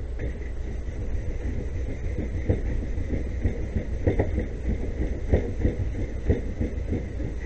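Sandpaper rubbed by hand over the painted plastic shell of a TRS-80 Model III case, in short irregular strokes that start about two seconds in, over a steady low rumble.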